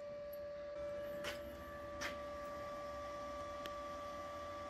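Faint steady electrical hum: one tone throughout, joined by a second, higher tone about a second and a half in. Two light clicks come a little over a second in.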